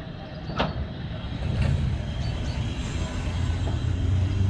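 Blackpool open-topped electric tram rolling past on its rails, a low rumble that grows louder as it nears. Two sharp clicks, about half a second and a second and a half in.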